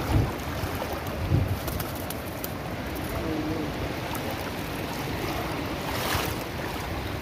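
Steady rush of fast-flowing river water, with wind buffeting the microphone in two short low thumps near the start.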